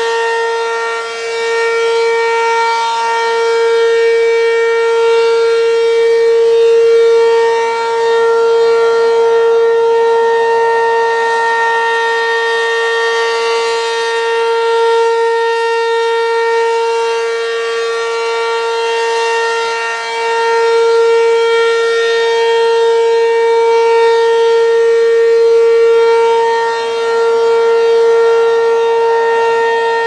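ACA P-15 single-horn rotating civil-defense siren sounding one steady tone at full speed. Its loudness swells and fades as the horn turns toward and away.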